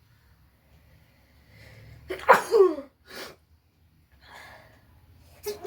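A person sneezing twice, each sneeze led by a drawn-in breath. The first, about two seconds in, is the loudest and ends in a falling cry; the second comes right at the end. The sneezes are set off by tickling the nose with coconut-husk fibre.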